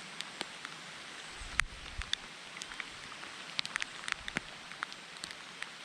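Steady rain hissing, with scattered individual drops ticking sharply close by, the sharpest about a second and a half in.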